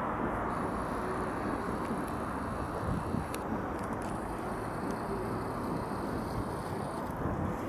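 Steady outdoor night-time background noise, a low even rumble, with a faint click about three seconds in.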